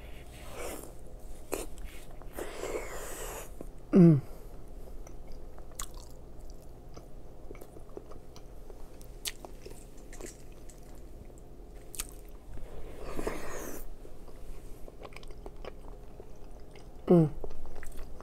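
Close-miked biting and chewing of soft seafood-boil food, a boiled egg among it, with breaths through the nose. Twice, about four seconds in and near the end, she gives a short falling hum ('mm').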